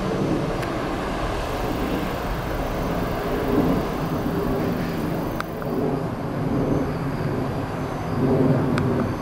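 Diesel railcars idling at a station, a steady low engine rumble that swells slightly twice, with a couple of faint clicks.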